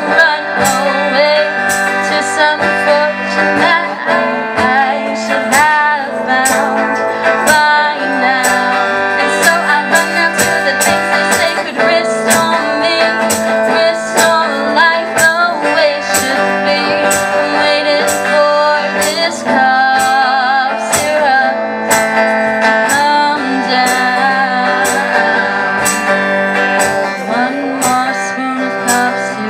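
A band playing a song: strummed guitar over a steady beat, with a melody line above it.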